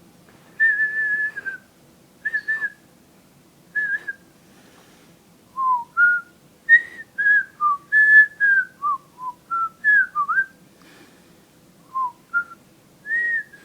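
A man whistling a halting tune of separate pure notes that slide up and down in pitch. It opens with a long held note, speeds into a quicker run of short notes in the middle, and ends on another long note. He says himself that he can't whistle well.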